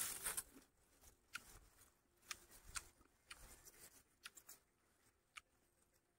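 Near silence with faint chewing: scattered soft clicks and smacks of someone eating meat with his fingers, after a brief soft rustle at the start.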